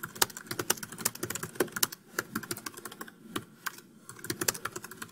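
Computer keyboard typing: quick runs of keystroke clicks with a brief pause about three seconds in.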